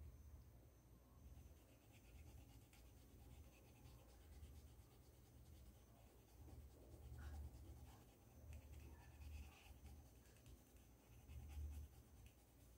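Faint scratching of a paintbrush stroking acrylic paint onto a cotton tea towel, with a few soft low bumps from the hand and table now and then.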